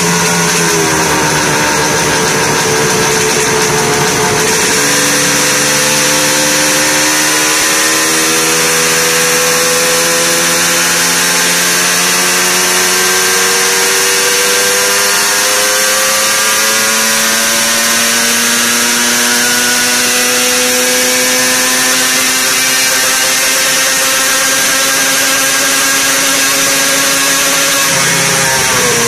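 Yamaha RD250's air-cooled parallel-twin two-stroke engine, with expansion-chamber exhausts, running under load on a rolling-road dyno. The revs fall about a second in, then from about five seconds in climb slowly and steadily for over twenty seconds in a dyno power run, before the throttle is shut and the revs drop sharply near the end. A steady high whine runs over it.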